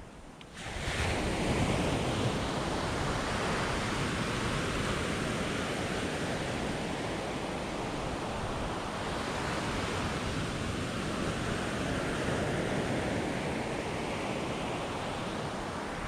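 Ocean surf breaking and washing up a sandy beach: a steady rush of foaming water that swells in about half a second in.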